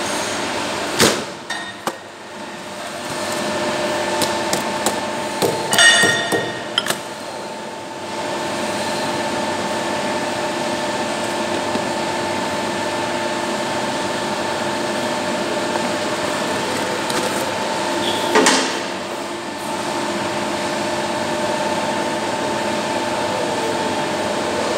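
Steady machine hum made of several fixed tones, with a few knocks and rattles from handling a boxed hydraulic motor and its cardboard and plastic packaging: one about a second in, a quick cluster with a short ringing around six seconds in, and another about eighteen seconds in.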